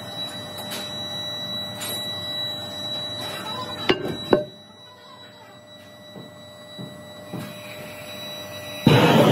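Two sharp metal clanks with a short ring about four seconds in as the metal halves of a brake-drum casting mould are lifted apart and set down, over steady workshop noise. Near the end a loud, steady gas torch roar starts suddenly.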